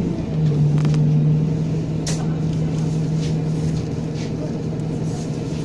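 Bus heard from inside the passenger cabin, its engine and drivetrain running with a steady low hum as it moves slowly. A couple of light knocks or rattles about one and two seconds in.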